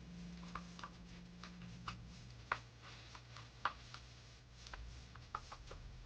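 Light, irregular clicks and taps of small handwork at a table, with two sharper clicks near the middle, over a low steady hum that drops in pitch about two seconds in.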